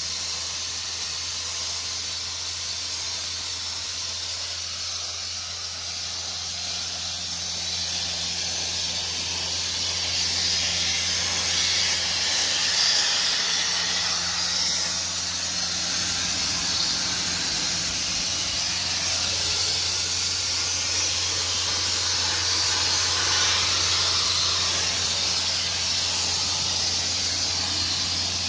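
Sandblaster nozzle hissing steadily as abrasive media is blasted against a car body's bare steel underside, with a steady low hum beneath it.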